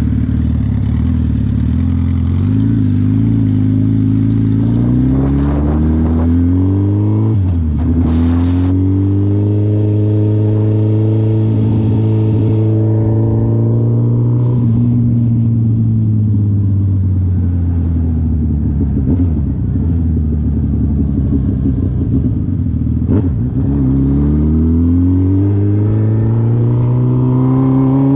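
2020 Suzuki Hayabusa's 1340 cc inline-four engine heard from the rider's seat as the bike pulls away: low revs at first, then the revs climb, drop sharply at a gear change about seven seconds in, climb again and hold steady, ease off, and climb once more after another dip near the end.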